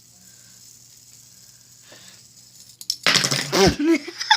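A metal-bearing fidget spinner falls from the chin and clatters and rattles about three seconds in, after a quiet stretch: the chin balance trick has failed. A short vocal sound, like a laugh or exclamation, follows right after.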